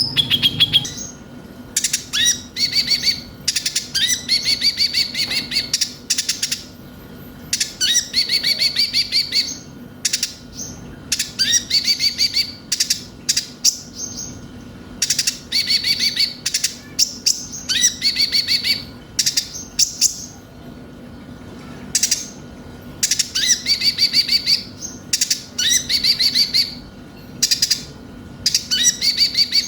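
Kolibri ninja sunbird singing: bursts of rapid, high trilled chattering, each often opened by a quick upward-sweeping note, repeated one after another with short pauses. A faint steady hum lies underneath.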